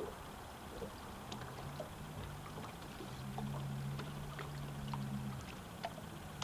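Low, steady hum of a boat motor, growing stronger from about three to five seconds in, over water lapping against the hull, with a few small clicks.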